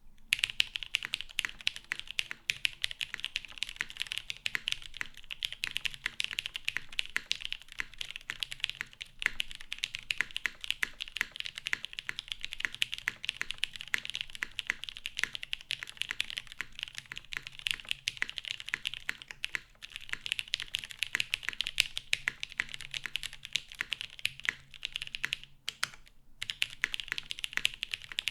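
Fast, continuous typing on a Salamander TKL mechanical keyboard with lubed JWK Cotton Candy switches on a PBT plate and GMK keycaps, keys clacking in quick succession. The typing breaks off briefly about two-thirds of the way through and again near the end.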